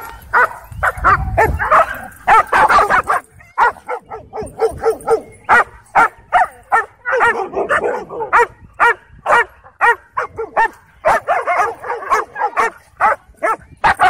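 Several dogs barking and yipping over and over in short, sharp barks, a few each second, as they wrestle.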